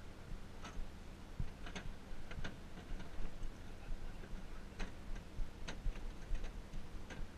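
About a dozen sharp clicks and ticks at uneven intervals over a steady low mechanical hum, aboard a bowfishing boat at night.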